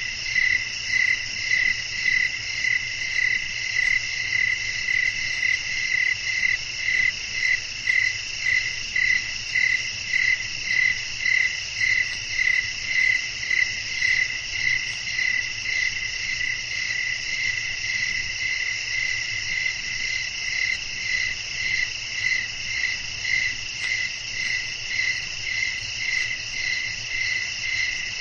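Crickets chirping at night: a loud, regular chirp, a little under two a second, over a steady high trill of other insects.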